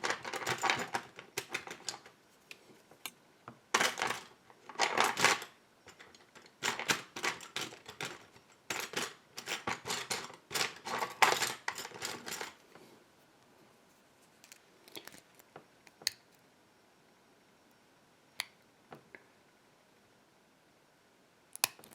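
A steel hook pick working the pins of an ISEO pin-tumbler lock cylinder under tension: rapid clusters of small metallic clicks and scrapes for about twelve seconds, then a few scattered clicks.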